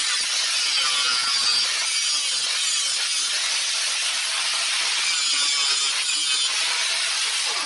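Power tool cutting steel, a steady high-pitched grinding hiss that stops abruptly near the end.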